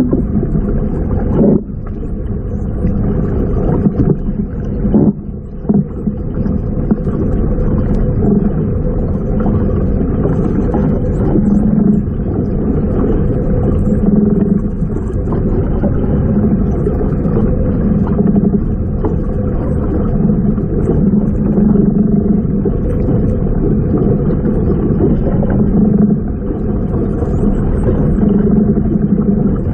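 Steady, muffled low underwater rumble of water noise through an underwater camera housing, swelling and easing every couple of seconds.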